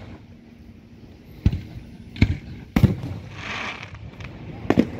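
Aerial firework shells bursting overhead: four sharp bangs, three close together in the first half and one near the end, with a short hiss in between.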